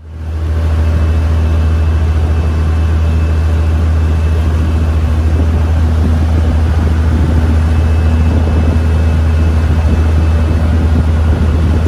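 A fishing boat's engine running steadily underway: a loud, even low drone, with the rush of water and wind over it.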